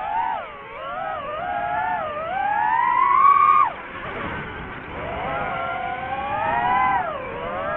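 DJI FPV drone's motors and propellers whining, the pitch rising and falling with the throttle. It climbs to its highest about three seconds in, drops sharply as the throttle is chopped, then rises again.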